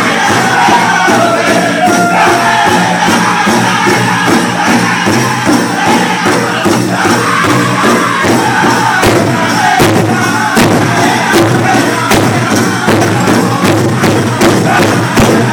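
Powwow drum group singing a chicken dance song together in high, strained voices over the beat of a large shared drum, with crowd noise around them.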